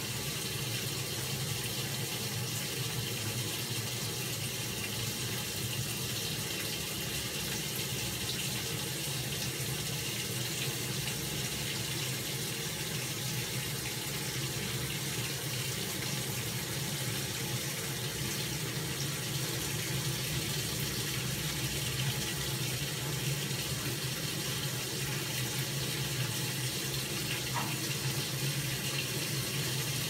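1976 Hoover 620 top-loading washing machine filling, water spraying steadily from the inlet into the tub on a mixed hot-and-cold fill.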